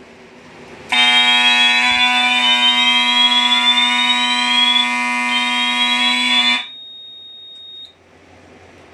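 Fire alarm horn on a Silent Knight 5820XL system sounding in alarm after a pull station is pulled: a loud, scratchy buzz with a higher tone sweeping upward several times above it. It starts about a second in and cuts off suddenly after about five and a half seconds when silenced. A faint high steady tone lingers for about another second.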